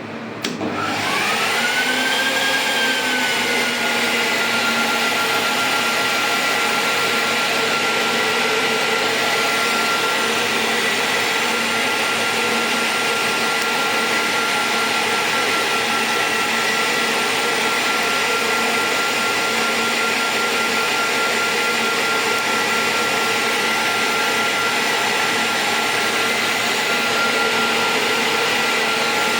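An IPL epilation device's power supply switched on under test, with a cooling fan or blower spinning up and then running steadily: a click about half a second in, then a whine that rises over about two seconds, eases back slightly and holds at one pitch, over a loud steady rush of air.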